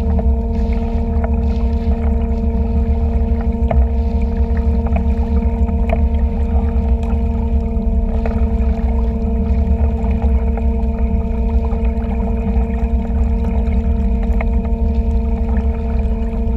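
Small boat's motor running steadily at low towing speed: a deep, even hum whose pitch stays the same throughout.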